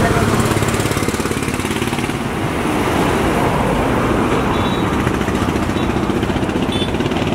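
An engine running steadily, with a fast even pulse and no change in speed.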